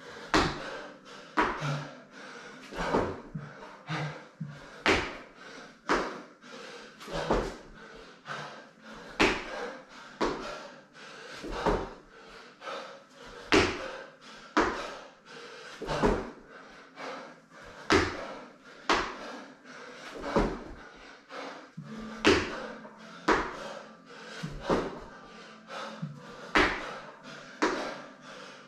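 Burpees on rubber gym flooring: hands and feet thudding down and landing from the jumps, a steady run of thumps about once a second.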